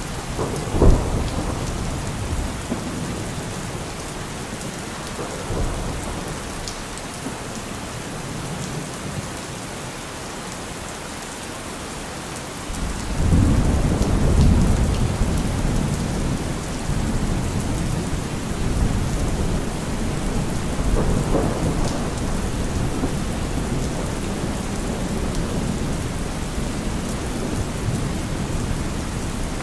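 Heavy rain falling steadily, with thunder: a sharp crack about a second in, then a long low rumble that rolls in about halfway through and slowly dies away.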